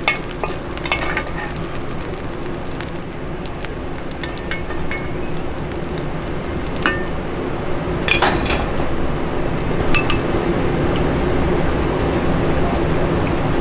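Cubes of pork sizzling in hot oil in a pan, with a few metal clinks and scrapes of a slotted ladle as the pieces are scooped out; the loudest clinks come about eight seconds in. A steady low hum runs underneath.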